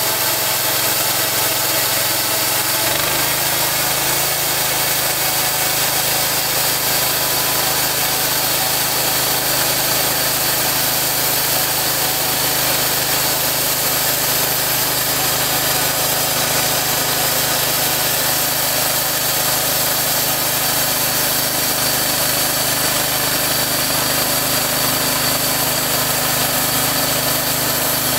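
Portable two-post bandsaw mill running, its engine driving the band blade as it cuts lengthwise through a log. The engine note shifts about three seconds in, then holds steady under the load of the cut.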